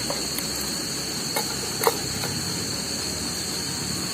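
Steady high-pitched chorus of night insects over the low hiss of a small camping stove heating a pot of boiling noodles, with a few sharp clicks, the loudest just under two seconds in.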